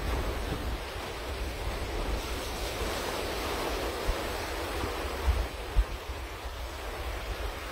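Ocean surf washing onto a sandy beach, swelling about two to four seconds in as a wave breaks, with wind gusting on the microphone as a low rumble and a couple of thumps near the middle.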